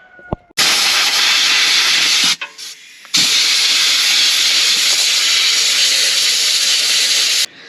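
Two long bursts of loud, steady hissing, like a jet of air or gas, that start and stop abruptly. The first lasts about two seconds and the second about four, with a short break between them.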